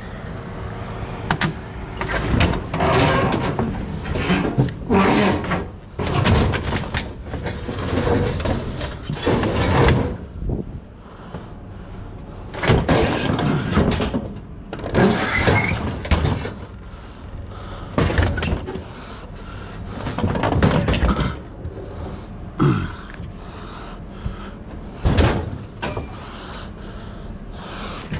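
Scraping, knocks and bangs in irregular bursts as a refrigerator is wrestled and shifted out.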